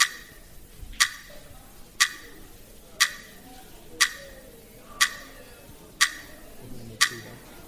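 Quiz answer timer ticking once a second, eight sharp ticks in a row, counting down a team's time to answer.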